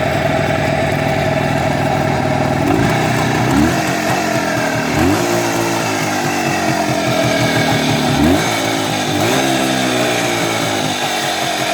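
A vehicle engine idling, revved briefly about five times, each rev rising and falling back. The engine is running with what the owner calls an extraneous noise.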